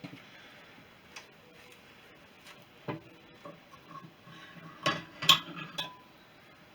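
Metal tools and engine parts being handled: scattered knocks and clinks, some ringing briefly, with a cluster of louder clinks about five seconds in.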